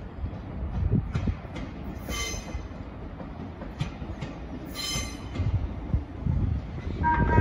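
Thameslink Class 700 electric train approaching with a low rumble from the wheels on the track, broken by two brief high squeals about two and five seconds in. Near the end its horn begins to sound, two steady notes together.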